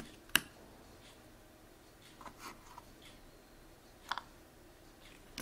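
Jigsaw puzzle pieces handled on a tabletop: a sharp click, a little soft scraping, then two quick clicks near the end.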